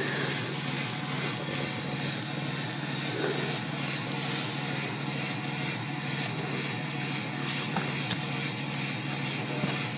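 Truck engine idling steadily: a constant low hum with hiss above it, no revving.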